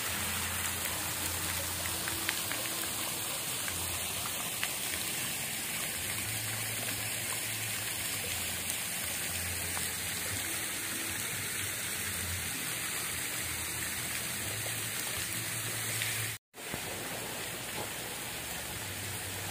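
Steady hiss of falling water, which cuts out for a moment about sixteen and a half seconds in.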